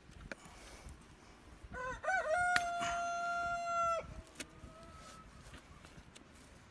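A rooster crows about two seconds in: a wavering rise into one long held note lasting about two seconds that cuts off sharply, then a faint trailing tail. Underneath are faint clicks and scrapes of a metal pick working the sole of a horse's hoof.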